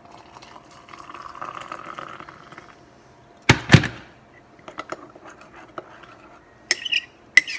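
Water poured into a cup over hot chocolate mix for about three seconds, then two loud knocks about three and a half seconds in. Near the end a spoon clinks against the cup as the mix is stirred.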